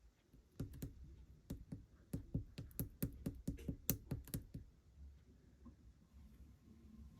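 Clear pink slime being pressed and squeezed by hand, giving a quick run of sharp clicking pops from trapped air, about three or four a second, that stops about four and a half seconds in.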